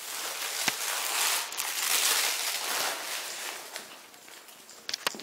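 Close rustling and crinkling that fades after about three seconds, with a sharp click early on and a few more clicks near the end.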